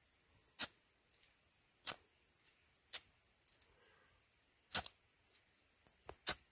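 Ferro rod struck with a hacksaw-blade striker, throwing sparks into tinder: short, sharp scrapes about every second or so, five main strikes with a few lighter ticks between and a quick double strike near the end.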